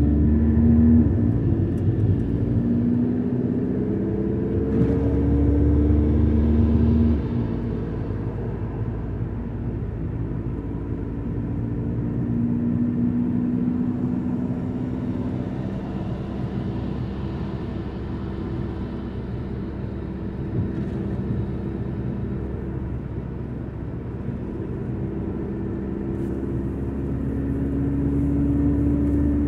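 Car engine and road noise heard from inside the cabin while driving: a steady low rumble, with the engine's pitch rising and falling as the speed changes.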